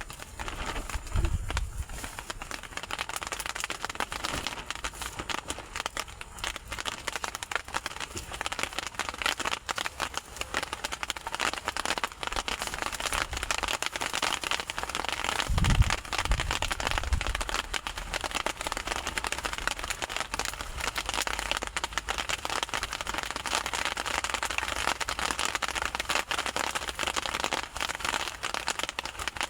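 Heavy rain pattering steadily, with low wind gusts buffeting the microphone about a second in and again about halfway through.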